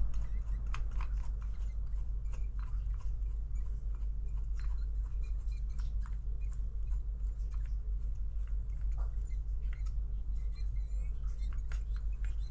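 Small irregular clicks and light rattles of plastic and metal parts as the opened cordless jigsaw housing and its gear mechanism are handled, over a steady low hum.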